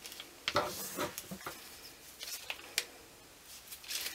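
Handling noises from a plastic piping bag and its metal tip being worked by hand: a scatter of soft clicks, crinkles and rustles, most of them in the first half.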